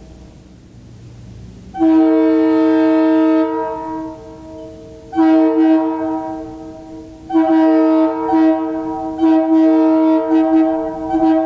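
Leslie RS2M two-chime air horn blown in four blasts, each a steady two-note chord. The first runs about two seconds; the later ones are shorter and follow with short gaps.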